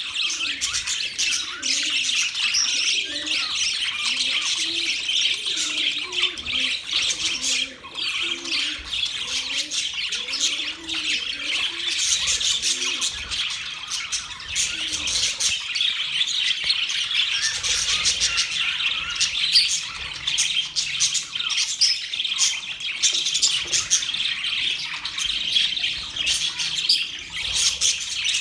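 A flock of budgerigars chattering and chirping without a break, a dense mix of many overlapping calls.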